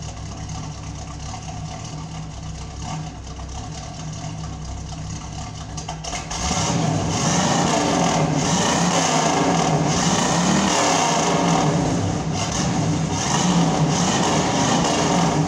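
1972 Pontiac Firebird Trans Am V8 running through a newly fitted replacement muffler, heard at the tailpipe. It idles steadily, then about six seconds in it is revved up and held, the revs rising and falling, before easing near the end.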